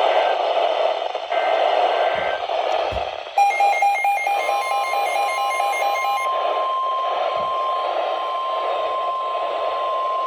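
Hissy, static-laden weather radio reception. About three seconds in, a few seconds of rapidly warbling data tones sound (the EAS header), and a second later the steady weather radio warning alarm tone begins and holds: the start of an emergency alert broadcast for a new warning.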